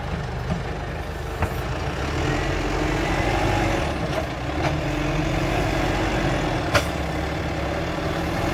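Claas Arion tractor's diesel engine working as its front loader and manure grab push into a manure heap, growing louder about two seconds in. A sharp knock about seven seconds in, with a smaller one earlier.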